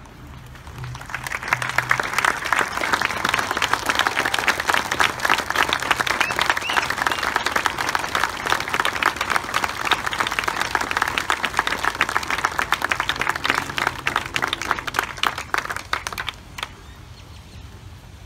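A large crowd applauding. It swells up about a second in, holds steady, and stops fairly abruptly near the end.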